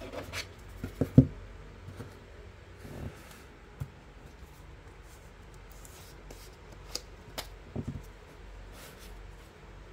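Hands handling a new, paper-banded deck of plastic-coated playing cards: scattered clicks and knocks as the deck is picked up and gripped, the loudest about a second in, with light rustling of the cards and band between them.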